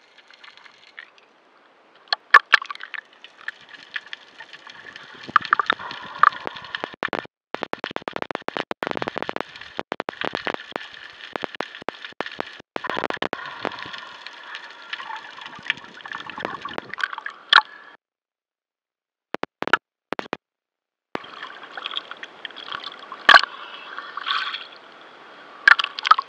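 Water sloshing and gurgling around an action camera's waterproof housing held underwater, with many sharp knocks and clicks. The sound cuts out completely for about three seconds about two-thirds of the way through.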